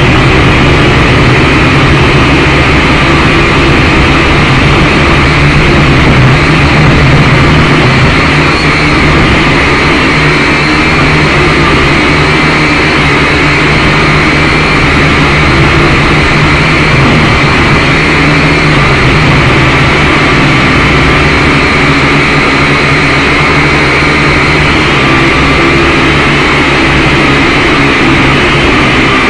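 Syma X5C quadcopter's small electric motors and propellers whirring steadily in flight, recorded very close by the drone's own onboard camera. A loud, rough hum with several steady whining tones that drift slightly in pitch as the throttle changes.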